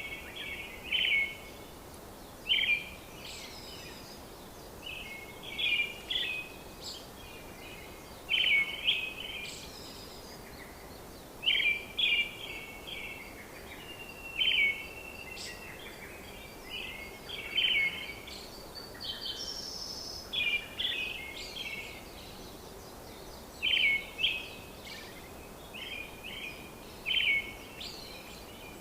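Birds chirping and calling in short clusters of quick notes every second or two, over a steady background hiss.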